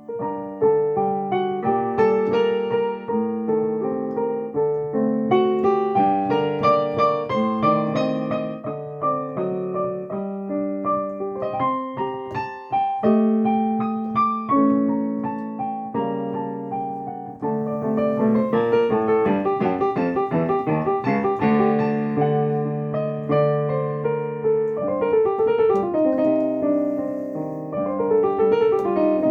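Solo piano improvisation, a flowing stream of notes over sustained lower chords. It grows busier with quick running figures about halfway through.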